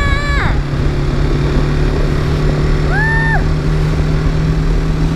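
BMW G310GS single-cylinder engine running steadily while the motorcycle cruises, under a steady rush of wind noise on the handlebar-mounted camera.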